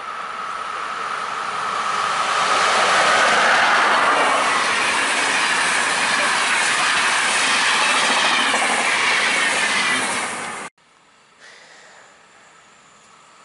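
RegioJet electric-locomotive-hauled passenger express passing at speed: a rush of wheels on rail and air that builds to a loud peak, with a high tone that slides down in pitch as the train goes by. It cuts off suddenly near the end, leaving only a faint sound of a distant train.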